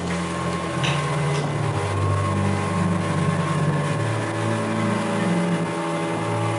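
Outboard motor of a river boat running steadily under way, with water rushing along the hull.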